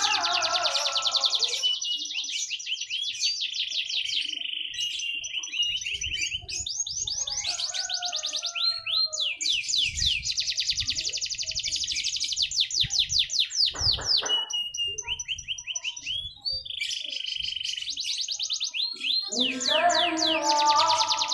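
Domestic canary singing a long, continuous song of rapid trills and rolls, broken by a few held whistle notes. A lower, layered pitched sound runs underneath in the first two seconds and again near the end.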